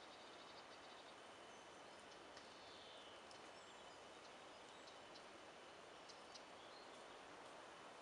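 Faint bird calls: short high chirps scattered through, with one falling call about three seconds in, over a steady hiss.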